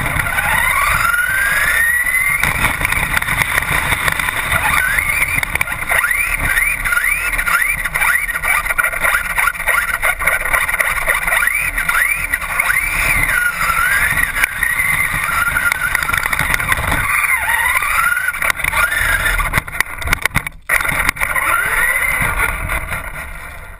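Traxxas RC car's motor whining up and down in pitch as it speeds up and slows again and again, over the rattle and rumble of the chassis and wheels, heard from a GoPro mounted on the car. The sound drops away near the end.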